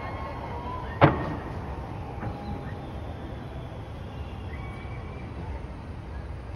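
Fireworks going off: one sharp, loud bang about a second in, over a steady background rumble.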